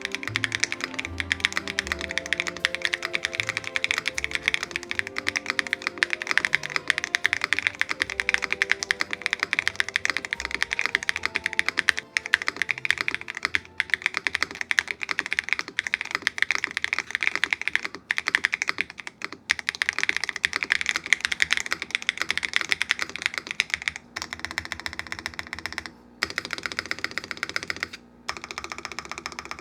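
Fast, continuous typing on a QK80 mk2 custom mechanical keyboard with roller linear switches on a POM plate, with background music under it that fades out over the first ten seconds or so. Near the end the typing comes in shorter runs separated by brief pauses.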